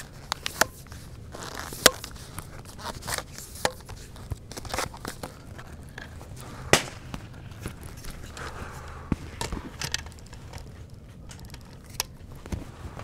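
Clicks, knocks and scrapes of a tripod being adjusted and a bolt-action rifle being set and clamped on its head. The knocks come at irregular intervals, with two sharper ones, about two seconds in and near seven seconds.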